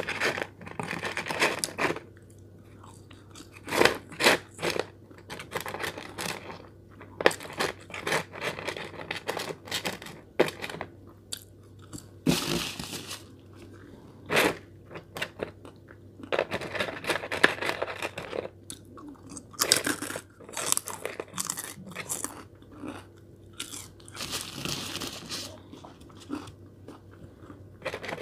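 Close-up chewing and crunching of a person eating McDonald's french fries, coming in irregular bursts with short pauses between.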